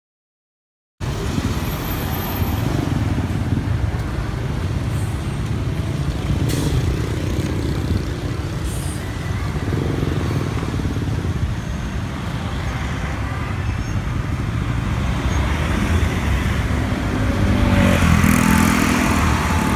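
Busy road traffic: cars, trucks and motorcycles passing in a steady low rumble that starts abruptly about a second in and grows louder near the end.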